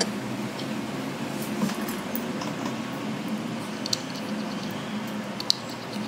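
Light clicks and taps of small parts and fingertips against an opened iPhone housing and its metal shield plates, a few scattered ticks with the sharpest one near the end, over a steady low hum.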